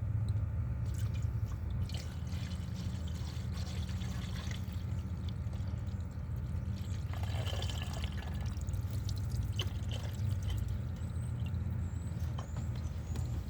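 Coolant being poured into the coolant overflow reservoir of a 2004 Ford Focus 2.3, the liquid pouring and gurgling as trapped air burps out of the cooling system, over a steady low hum. This is the cooling system being bled of air after the reservoir hose was reconnected.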